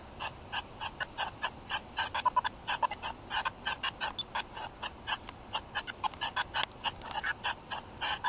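SpiritVox ghost-box app playing through a smartphone's speaker: a rapid, irregular stream of short clipped blips of chopped-up sound, several a second, used as a noise for spirits to speak through.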